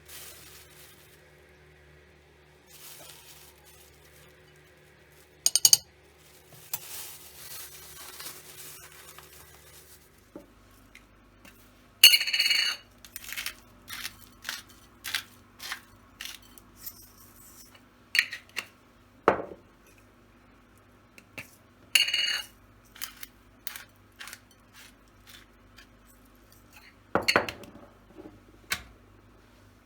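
Kitchen handling sounds: dishes, glass and cutlery clinking and knocking in a string of short separate clinks, with a few louder ringing strikes.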